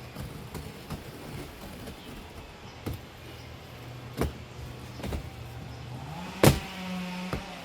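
A chainsaw running in the distance at a steady pitch, its pitch rising briefly near the end as it is revved. Several sharp knocks sound over it, the loudest about six and a half seconds in.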